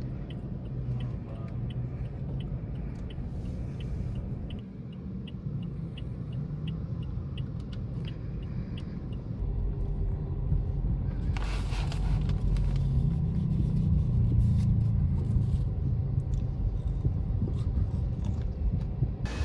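Cabin noise of a Toyota car on the move: a steady low rumble of engine and road that grows louder about halfway through. For the first half there is a light ticking about twice a second.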